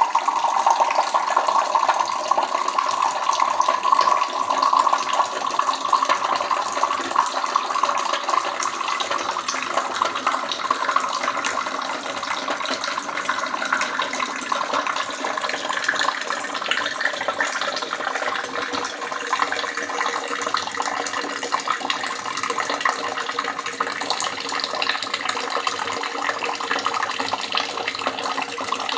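Water running and splashing steadily, like a tap into a sink. A hollow note in the splashing fades out after about ten seconds, leaving a brighter, even rush.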